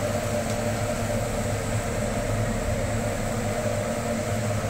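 A steady machine hum from a running motor, such as a fan, with an even hiss over it.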